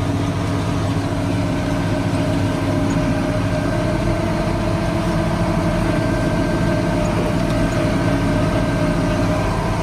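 Heavy diesel machinery running steadily while a combine unloads corn into a semi: an even engine drone with a held mid-pitched whine.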